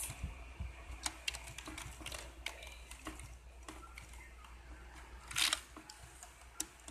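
Computer keyboard typing: irregular key clicks, with a louder clatter of keys about five and a half seconds in.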